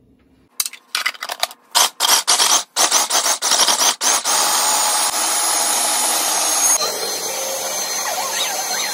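Food processor chopping raw chicken breast with chunks of potato and carrot: pulsed in a string of short bursts, then run continuously as it grinds the mix to a paste. About seven seconds in it gives way abruptly to a different steady whirring sound.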